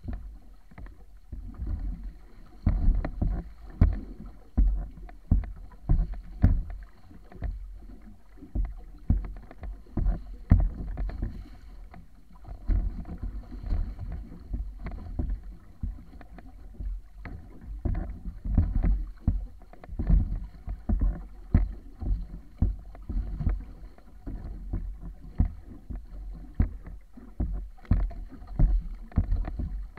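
Water rushing and slapping against the wooden hull of a wa'apa outrigger canoe under sail through choppy water: a continuous deep rush with irregular loud slaps and splashes every second or so.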